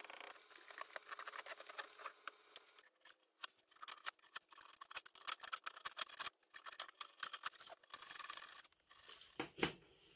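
Utility knife cutting through a Coroplast corrugated plastic sheet: a fast, crackly run of small clicks and scrapes, with a louder knock near the end.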